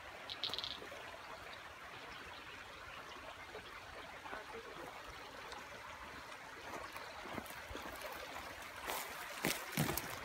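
Shallow creek trickling over rocks, a steady gentle flow. A brief high chirp about half a second in, and a few sharp knocks near the end.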